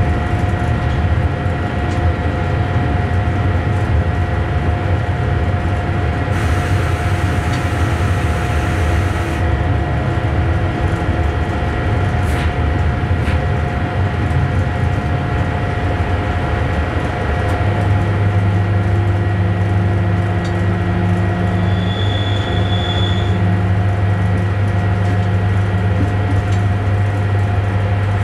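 Cab noise of an electric train running along the track: a steady low hum and rumble with several steady whining tones over it. A brief hiss comes a few seconds in. About two-thirds through, the low hum becomes stronger and steadier.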